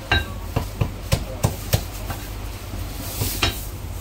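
Heavy cleaver chopping cooked chicken on a thick wooden chopping block. Sharp knocks come about three a second for the first two seconds, then a few more spaced out.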